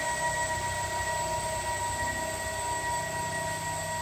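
Small electric motors spinning the propellers on an ultralight's wings: a steady whine of several even tones over a low rumble and hiss.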